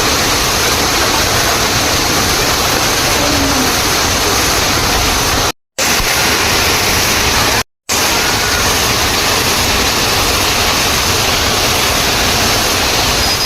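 Waterfall: a loud, steady rush of falling water, cut off twice by split-second gaps of silence, about five and a half and seven and a half seconds in.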